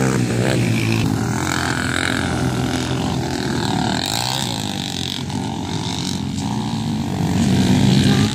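Off-road racing engines revving up and down as riders go round a dirt track, several engines overlapping, dipping a little in the middle and louder again near the end.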